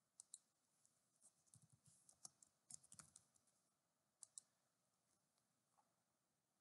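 Faint computer keyboard typing: a quick, uneven run of keystrokes over a couple of seconds, framed by pairs of sharp mouse clicks just before it and about four seconds in.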